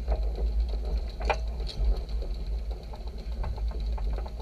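Electric mobility scooter motor running with a steady high whine as it tows a trimaran on its trolley up a slipway. A low rumble underneath, with scattered clunks and one sharper knock about a second in.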